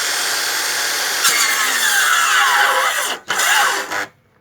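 Electric circular saw running at speed, then biting into a log of firewood about a second in, its whine dropping in pitch as the blade bogs under the load. The sound cuts off abruptly twice near the end. The sawyer puts the binding down to the wood being wet.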